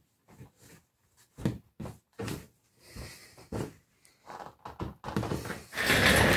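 Cloth rag and gloved hand rubbing and creaking against a spin-on oil filter as it is twisted hand tight, in short scattered bursts. Near the end a louder, steady rushing noise sets in.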